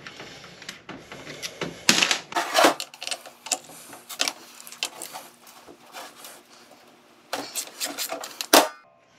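Hand ratchet and socket working the stator support bolts out of a 47RE/48RE transmission pump: irregular clicks and metal-on-metal clinks, with the sharpest clink near the end.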